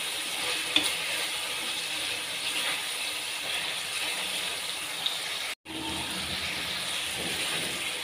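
Chicken pieces sizzling in hot oil and masala in a metal karahi while a spatula stirs them, with a few light taps of the spatula on the pan. The sound cuts out for an instant about five and a half seconds in.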